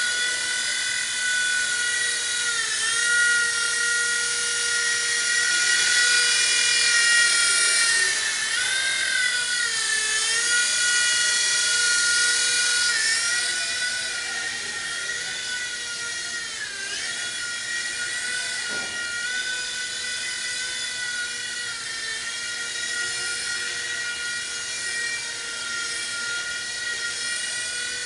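WLtoy V911 micro RC helicopter flying, its small electric motors and rotors giving a steady high-pitched whine. The pitch dips briefly a few times as the throttle changes, and the whine is softer from about halfway through.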